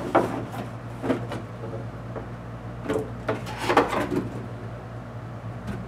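Cardboard packaging handled: a toy's retail box scraping and sliding out of a corrugated shipping box, in several short rubbing scrapes, over a steady low hum.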